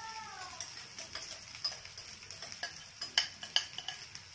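Metal spatula tapping and scraping against a kadai while leftover rice is stirred into the fried vegetables: a run of light taps, with two sharper knocks about three seconds in.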